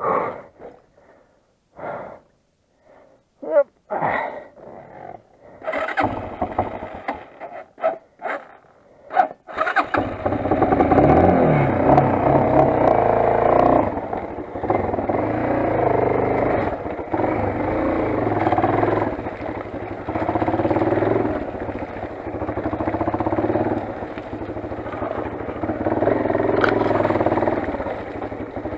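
Motoland XR 250 dirt bike's single-cylinder four-stroke engine running, its note rising and falling as the bike rides on. It comes in suddenly about ten seconds in, after scattered short knocks and clatter.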